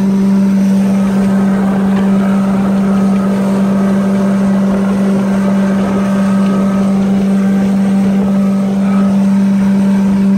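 Outboard motor on a fishing boat running at high speed with a steady, unchanging drone, over a rush of wind and water spray along the hull.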